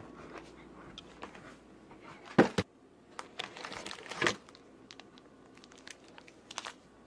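A cardboard box of plastic-wrapped granola bars being rummaged through as one bar is pulled out, with rustling and wrapper crinkling. Two sharp knocks come about two and a half seconds in.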